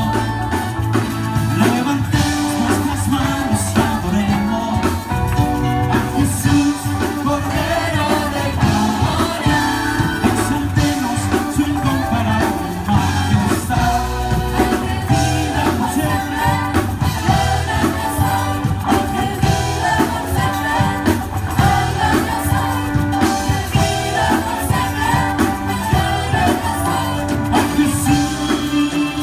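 Live church worship band playing and singing: keyboard and drums under several singers on microphones.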